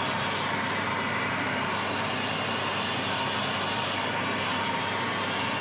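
Steady rushing noise of a gas-oxygen torch burning a fuel-rich flame on a crucible of melting silver and copper, together with an exhaust fan running.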